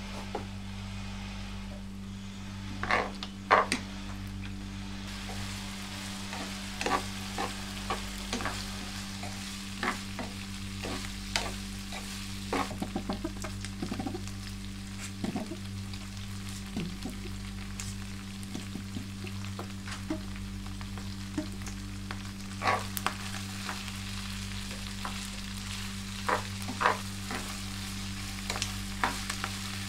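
Chopped pork sisig sizzling in a nonstick frying pan, with a spatula stirring and knocking against the pan in short scattered clicks and scrapes. A steady low hum runs underneath.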